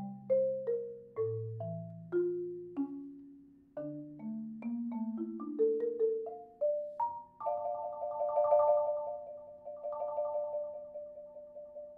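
Yamaha concert marimba played with four mallets: single struck notes in the low and middle range ring and overlap. About seven and a half seconds in, a chord is rolled with quick repeated strokes and fades away near the end.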